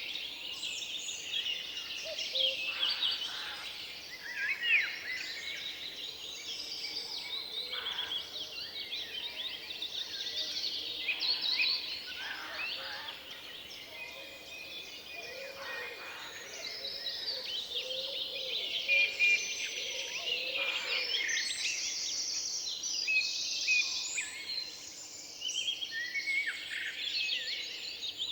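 Forest songbirds: several birds singing and calling at once, a dense overlapping chorus of chirps and rapid trills.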